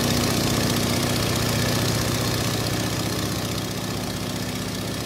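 Steady drone of airplane engines as heard inside the cockpit in flight, with a constant low hum, easing down a little in level over the seconds.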